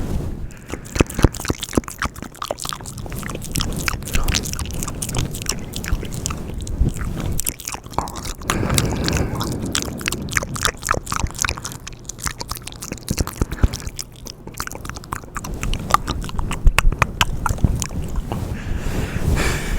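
Mouth sounds: a dense, continuous run of short wet clicks and smacks from the lips and tongue, with louder stretches about halfway through and again near the end.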